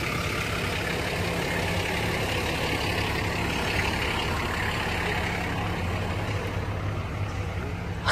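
Off-road 4x4 vehicle engine running steadily at a constant speed, a low even hum with no revving.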